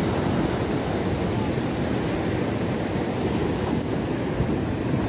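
Sea surf breaking and washing over shoreline rocks: a steady rushing noise.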